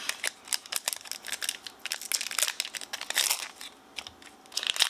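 Foil wrapper of a Pokémon trading-card booster pack crinkling in quick, irregular crackles as it is handled and torn open.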